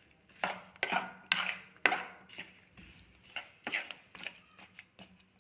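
Metal spatula scraping and knocking against a kadhai while stirring lumps of jaggery in a little ghee and water, in irregular strokes, most of them in the first two seconds.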